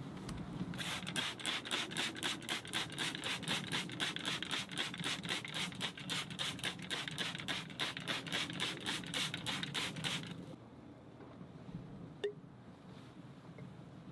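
Seasoning shaker shaken in a steady rhythm, about four shakes a second, for roughly nine seconds before it stops. A single sharp tick follows a couple of seconds later.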